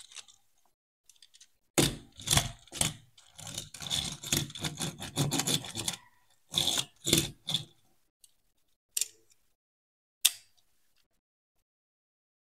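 Small toy truck scraped and rolled back and forth across the cardboard floor of a box, in a run of rough strokes. Three shorter scrapes follow, then two sharp clicks of the plastic toy being handled near the end.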